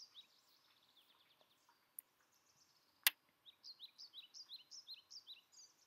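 Felt-tip Sharpie marker squeaking faintly on paper while petal loops are drawn, in short, high, falling squeaks, a few at first and then a quick run of about three a second. One sharp click comes about three seconds in.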